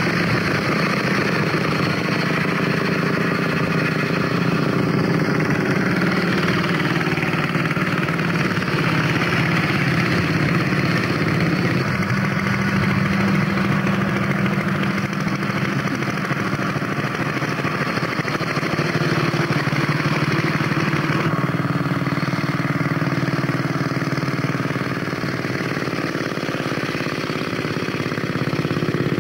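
Vintage motorcycle engines running as several bikes ride along the road, steady throughout, with the sound changing abruptly about two-thirds of the way in.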